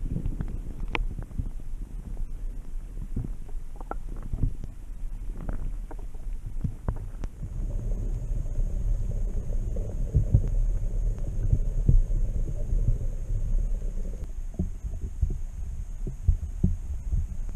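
Wind buffeting and road rumble on an action camera's microphone while cycling: a steady deep rumble broken by irregular knocks and thumps.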